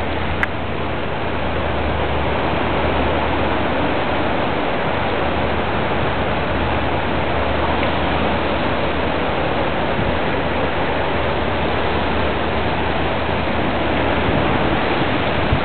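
Steady, even rush of tropical-storm wind and rain, with a low steady rumble underneath.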